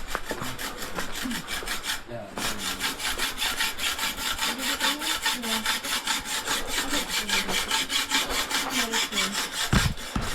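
Fast, even scraping strokes at a blacksmith's forge, about five or six a second, like metal being filed or wire-brushed, starting about two seconds in. A single heavy thump comes near the end.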